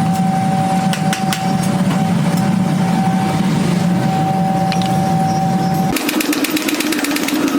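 Forging-shop machinery running steadily with a hum and a steady tone, with occasional clinks. About six seconds in it changes abruptly to a different machine with rapid, even ticking.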